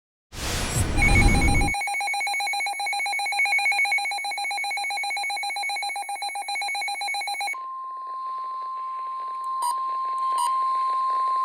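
Weather radio receiver sounding a warning alert: a short burst of static as it comes on, then a fast-pulsing electronic beep alarm for about six seconds, then the steady NOAA Weather Radio 1050 Hz warning tone, which marks a warning-level alert. Two brief clicks come during the steady tone.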